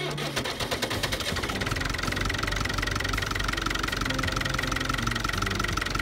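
The White Field Boss 2-60 tractor's diesel engine running at a steady idle, with an even, rhythmic clatter.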